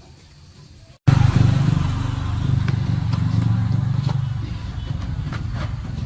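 Small petrol engine running steadily with a rough low pulse, cutting in suddenly about a second in, loudest at first, with a few light clicks over it.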